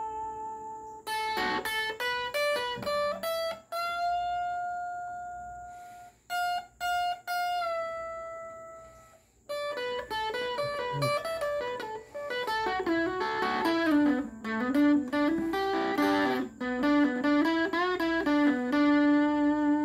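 Solo guitar playing a melody. A few notes are left ringing and fade out, there is a brief break about halfway, then quicker runs of notes follow.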